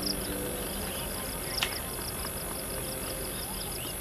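Outdoor dusk ambience: insects drone steadily at a high pitch, with a fast, regularly repeating high chirp and a single sharp click about one and a half seconds in.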